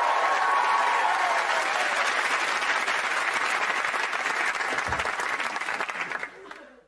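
Studio audience applauding, with some cheering in the first second or so; the applause dies away about six seconds in.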